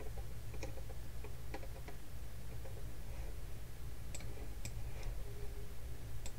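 Irregular, scattered clicks of a computer mouse being used to navigate, about seven in all, over a steady low electrical hum from the recording setup.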